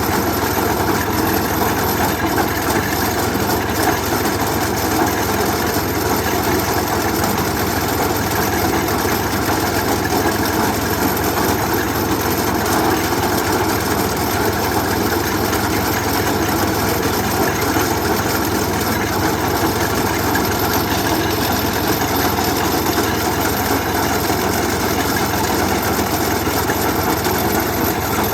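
An engine running steadily and evenly, with no change in speed.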